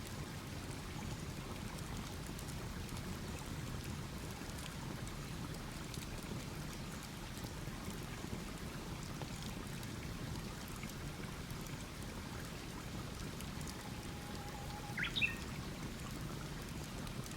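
Wood campfire burning with a steady low rushing hiss and scattered faint crackles. A bird gives one short chirp near the end.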